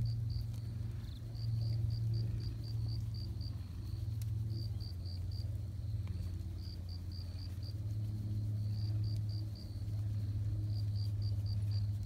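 Black cat purring steadily while being stroked, a low continuous purr that swells and eases with each breath every couple of seconds. Crickets chirp faintly in short repeated trains over it.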